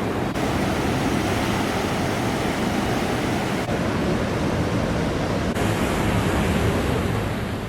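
Ocean surf breaking on rocks, a continuous loud rush of waves, changing abruptly in brightness a few times.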